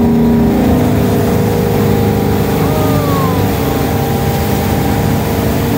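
Wake boat's inboard engine running steadily under way while towing a wakesurfer, with the rush of the churning wake.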